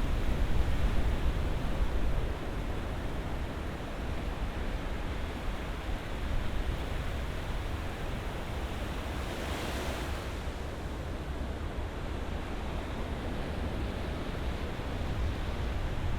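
Ocean surf washing steadily with a deep rumble, louder in the first couple of seconds, and a brief hiss of breaking water about ten seconds in.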